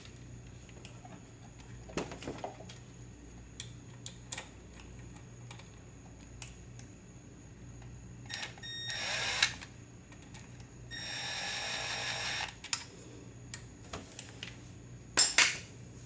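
Cordless driver spinning twice in short runs, a brief one and then a longer one of about a second and a half, running in the two short 5/16 bolts that hold the pickup sensor onto a scooter stator. Light clicks and taps of the tool and parts being handled come in between, with a couple of sharper clacks near the end.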